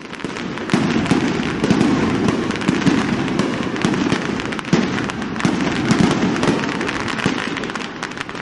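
Aerial fireworks bursting in quick succession: a continuous run of bangs and crackling, with a few louder bangs standing out.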